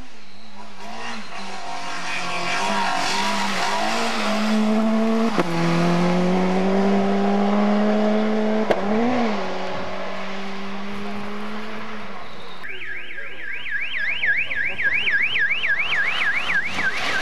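A rally car's engine running hard as it comes up the gravel stage and passes, with two sharp cracks about five and nine seconds in. From about thirteen seconds a rapid yelping siren, about three sweeps a second, sounds from a course car with a roof beacon.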